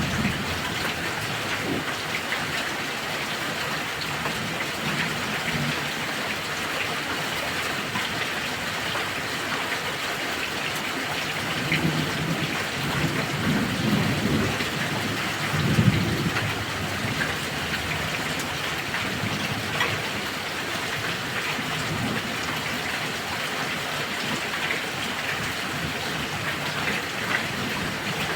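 Heavy rain falling steadily, with low thunder rumbling a little before halfway and peaking just past the middle.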